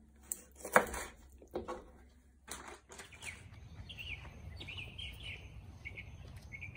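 A kitchen knife chopping through raw chicken wings on a cutting board: four sharp knocks in the first three seconds. Then birds chirping repeatedly over a low steady background noise outdoors.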